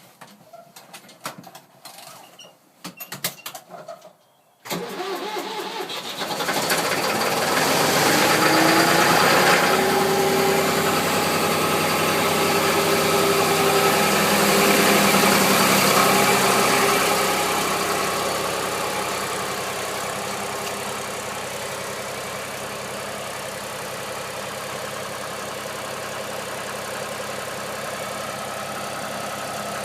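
Dead-cold Ford three-cylinder diesel of a 2001 New Holland LS180 skid steer starting after only a short glow: it cranks and catches about five seconds in, runs loudest for roughly ten seconds, then settles to a steady, quieter idle.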